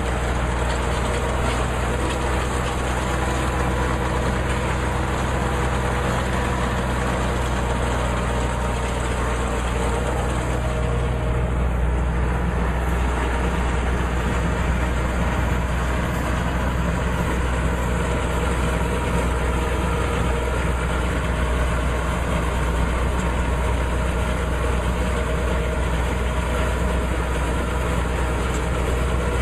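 Tractor engine running at a steady speed, powering a Massey Ferguson 1745 round baler, with the baler's machinery turning. The sound holds even throughout, with no change in pitch.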